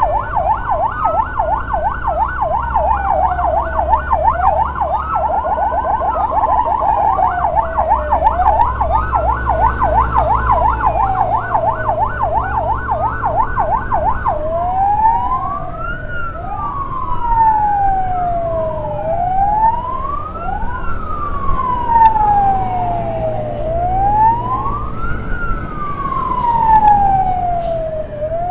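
Electronic emergency siren of an ambulance escort. For the first half it gives a rapid yelp over a slower wail, then switches to a slow wail alone, rising and falling about every two and a half seconds. A motorcycle engine runs low underneath.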